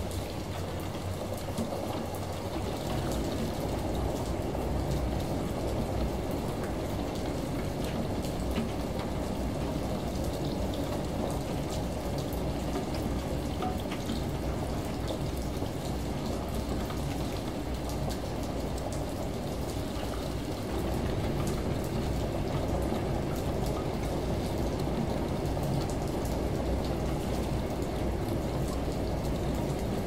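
Layered ambience of a washing machine droning through its cycle, mixed with a running shower and rain heard from indoors. It is a steady, dull wash of water noise over a low hum, and it gets slightly louder about two-thirds of the way through.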